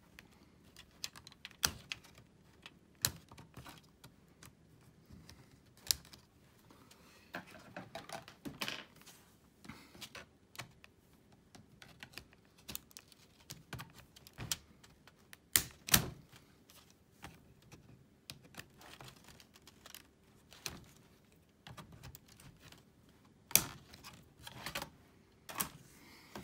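Scattered small plastic clicks and knocks of hands and a screwdriver working at a Sony Vaio laptop's underside, freeing and lifting out the battery. The sharpest knocks come about two-thirds of the way through and again near the end.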